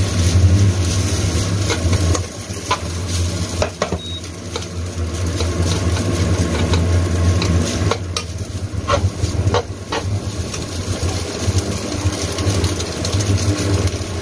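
Cooked rice being broken up and stirred by hand in a nonstick frying pan: soft rustling with scattered light clicks, over a steady low hum.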